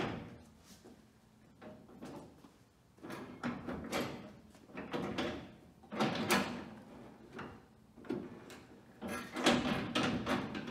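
Steel tailgate of a VW Mk1 Caddy pickup being worked by hand: its latch and handle clunk and rattle in several bursts of knocks as it is moved and latched.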